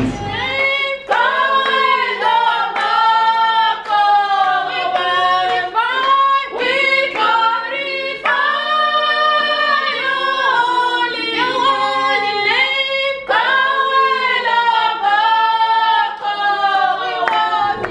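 A small group of women singing together a cappella, with no instruments.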